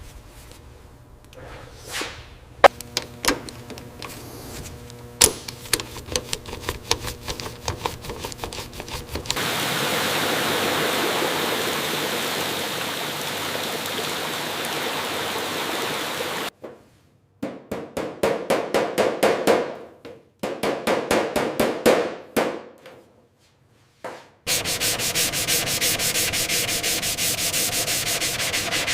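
Hand sanding and rubbing on a surface. Scattered taps and clicks come first. About nine seconds in, a steady stretch of sanding starts, then two runs of quick back-and-forth strokes at about three a second, then steady sanding again.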